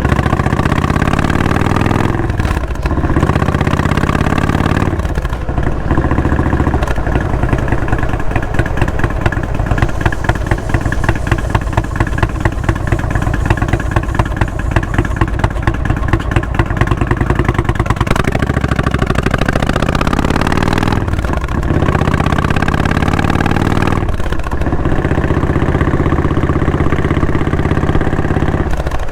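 Indian Springfield V-twin running through a Freedom Performance aftermarket exhaust under way, climbing in pitch as it accelerates with brief breaks at the gear changes. Through the middle it settles into steadier running with a strong pulsing beat.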